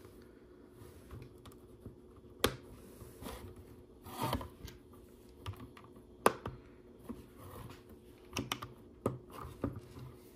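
Plastic LEGO pieces clicking and clacking as they are handled and pressed together, with irregular sharp clicks, two louder snaps about two and a half and six seconds in, and a quicker run of clicks near the end.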